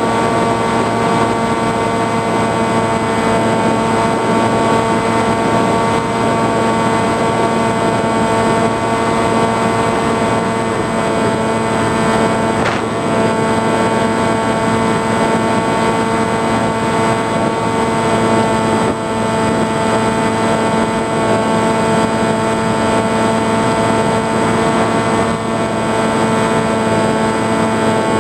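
Motor and propeller of an FPV flying-wing model plane, picked up by the onboard camera, running at a steady whine with air rushing past at constant throttle.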